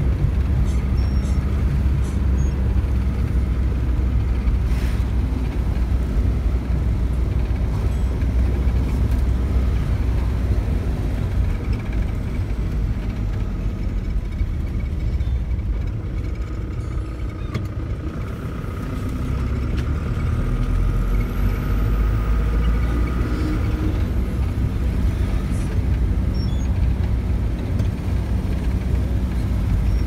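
Engine and road noise of a car heard from inside its cabin: a steady low rumble with a faint whine. It eases off for a few seconds around the middle, then builds again.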